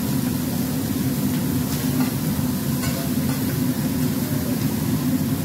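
Shrimp, chicken and steak sizzling on a teppanyaki steel griddle as the chef stirs them with a metal spatula and fork, with a few light clicks of metal on the steel about two to three seconds in, over a steady low rumble of room noise.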